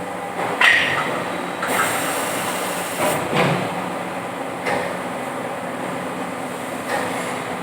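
Plastic injection moulding machine running with a steady hum, with several clunks and a high hiss lasting about a second near the middle.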